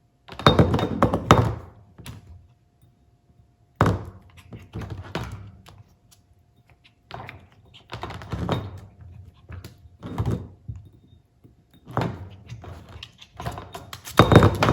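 A plate being knocked and shoved about by a Chihuahua-poodle puppy: bursts of clattering knocks come in about four bouts with short pauses between them.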